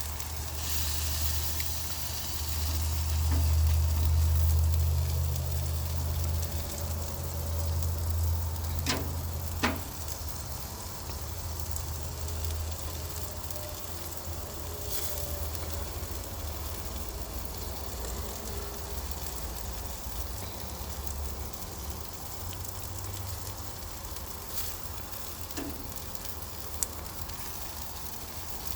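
Food sizzling as it fries, a steady hiss under a low rumble that is strongest in the first several seconds. Two sharp clicks come close together about nine seconds in.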